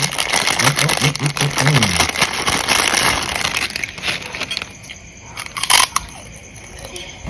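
Person slurping and eating soup broth noisily for about four seconds, with a short low hum of the voice partway through; then quieter, with one short, sharp burst near the end.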